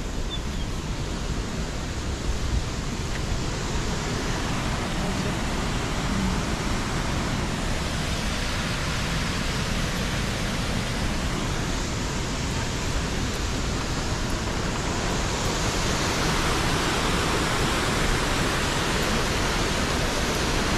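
Rushing water of a river waterfall, a steady noise that grows a little louder over the last few seconds.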